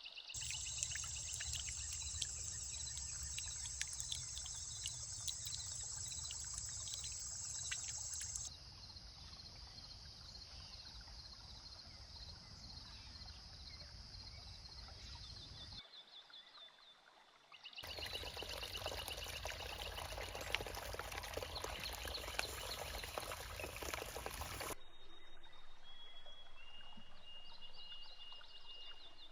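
Nature sound bed of running water with birdsong. It changes abruptly several times as different recordings are cut together, and ends with a thin high bird call.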